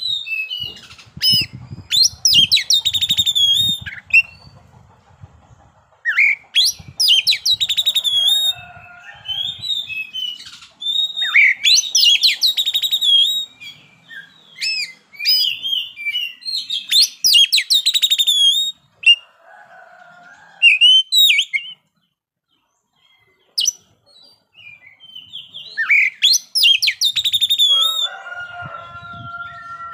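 Oriental magpie-robin (kacer) singing loud, varied song phrases of sliding whistles and rapid trills, a new burst every few seconds, with a few low thumps under the first phrases.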